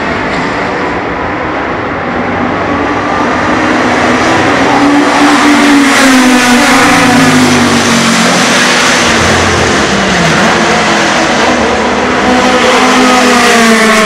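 Open-wheel historic racing cars going past at speed with their engines revving hard. The engine notes grow louder and then fall in pitch as the cars go by around the middle, and another engine rises in pitch near the end.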